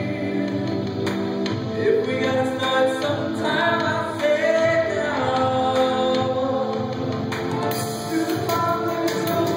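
A man singing a contemporary Christian song into a handheld microphone over a steady instrumental accompaniment, amplified through loudspeakers.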